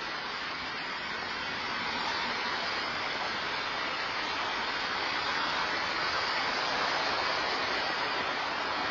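Steady rushing hiss of road traffic passing beyond the forecourt, picked up by an outdoor security camera's microphone; it swells a little about two seconds in and stays there.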